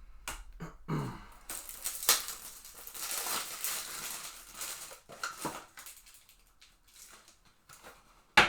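Crinkling of plastic and foil trading-card wrappers being handled, densest in the middle, with scattered clicks of cards and packaging and a sharp click near the end.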